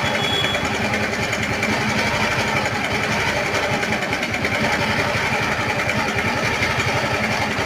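Bajaj Pulsar 150's single-cylinder four-stroke engine idling steadily with rapid, even firing pulses. This is the engine noise problem that a timing chain change is meant to cure.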